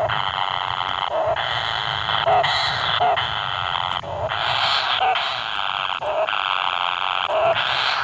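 Kingfisher nestlings begging: a continuous harsh rasping call, broken by short pauses about once a second, with a brief lower note at each break.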